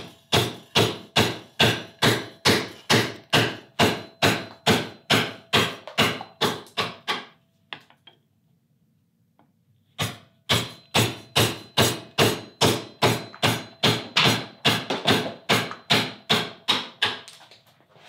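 Mallet striking a carving gouge in a steady rhythm of about three blows a second, driving the gouge to hollow the bowl of a ladle in dry wood. The blows stop for a couple of seconds about halfway through, then resume.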